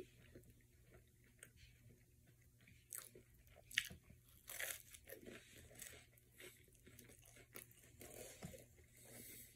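A person biting into and chewing buttered whole wheat toast topped with baked beans: faint, scattered crunches in short clusters.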